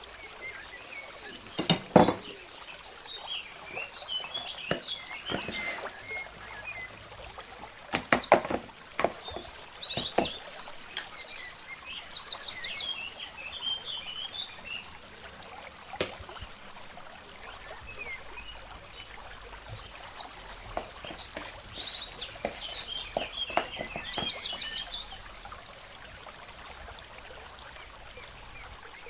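Small birds chirping and trilling repeatedly in the background, with occasional sharp knocks and clatter.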